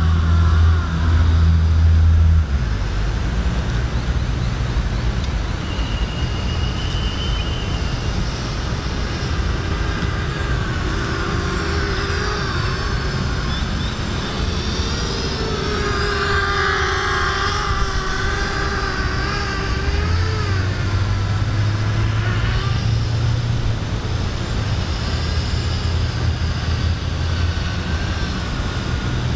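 Motors and propellers of a 210-size FPV racing quadcopter, heard from the ground. The whine slides up and down in pitch as the throttle changes. A steady low rumble runs underneath.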